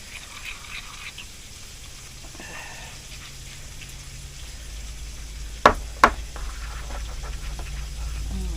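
A spoon stirring a thick powdered-sugar and corn-syrup glaze in a bowl, with two sharp knocks against the bowl a little past halfway, over a low steady hum.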